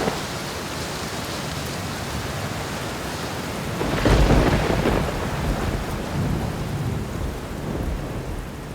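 Steady rain with a thunderclap about four seconds in: a sharp crack and a deep rumble that fades over the next few seconds.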